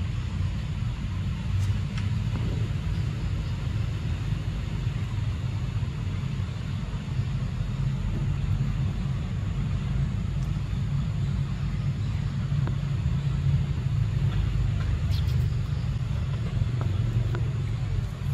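Steady low rumble with a few faint scattered ticks.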